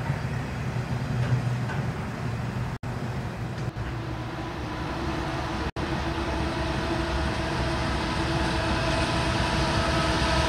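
Freight train rolling past, the wheels of autorack cars giving a steady low rumble on the rails. After two abrupt cuts, a steady hum of diesel locomotives grows slowly louder as a second freight train approaches.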